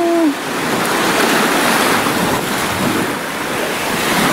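Shallow sea water washing and sloshing over seagrass at the shoreline, with wind on the microphone. A held tone cuts off just after the start.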